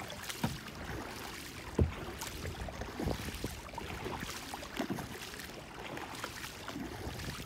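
Kayak paddle strokes: the blades dipping, splashing and dripping water over a steady wash, with a few short, light knocks.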